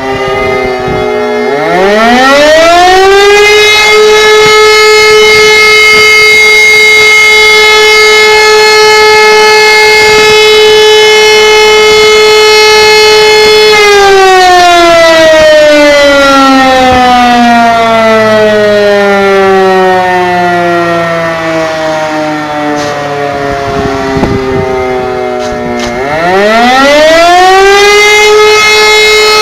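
E57 electromechanical civil-defence sirens sounding the German fire-alarm signal (Feueralarm). About a second and a half in, a siren winds up to a steady wail held for about twelve seconds. It then winds down in a long falling tone, with more sirens falling beneath it, and winds up again near the end.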